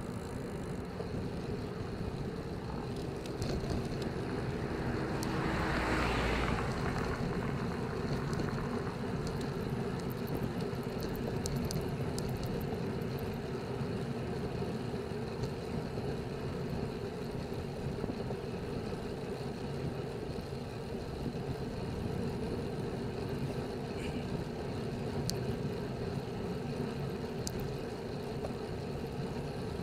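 Steady wind rush on the microphone and tyre noise from a road bicycle riding at about 22–26 km/h. A louder rush swells and fades about six seconds in.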